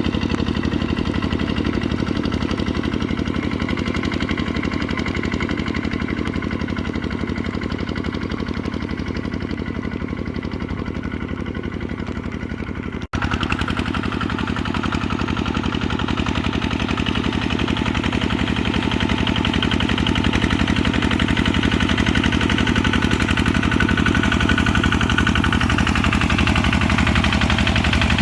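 Kubota RT140 single-cylinder diesel engine running steadily with a rapid, even chugging. A brief break about 13 seconds in, after which it is a little louder.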